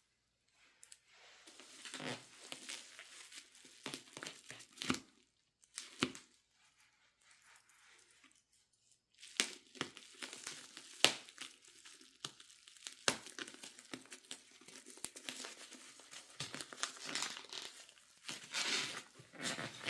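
Model-airliner packaging being unwrapped by hand: irregular crinkling and tearing of wrapping with sharp clicks, broken by a few short pauses.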